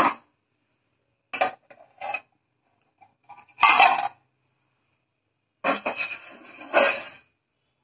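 Aluminium pot lid and metal cover scraping and clanking against the rim of a steamer pot as they are lifted off, in several short bursts, the loudest about four seconds in and a longer one near the end.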